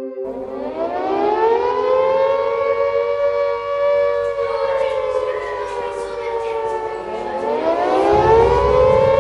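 Air-raid siren winding up to a wail, sagging and falling away, then winding up again about seven seconds in: the rising and falling air-raid warning. A low rumbling noise joins near the end.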